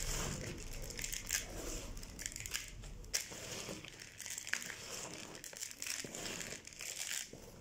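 Gloved hands stirring a coarse potting mix of pumice, zeolite and clay pebbles in a plastic bowl: an irregular gritty crunching and rustling with many small crackles.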